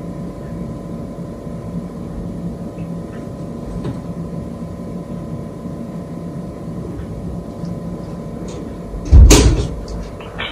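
Steady low room hum with faint ticks, then one loud, sudden thump about nine seconds in that dies away within half a second.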